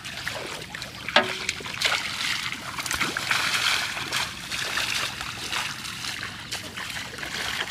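Bare feet splashing through shallow floodwater as someone wades and runs, with water sloshing and a steady run of small splashes.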